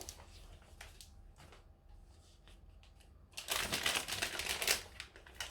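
Plastic sweet packet crinkling and rustling as it is handled, starting about three seconds in after a few faint ticks.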